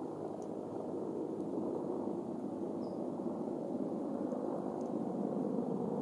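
Steady rushing background noise, with one faint, brief high chirp about three seconds in.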